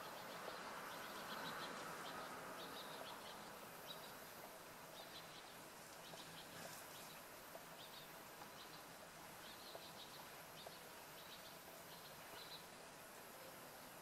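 Quiet outdoor background with faint, short, high-pitched chirps in small clusters, repeating every second or so.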